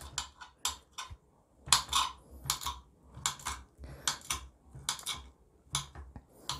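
A kitchen knife tapping and clicking against a glass cutting board as an avocado is diced: irregular sharp clicks, often in pairs, about two to three a second.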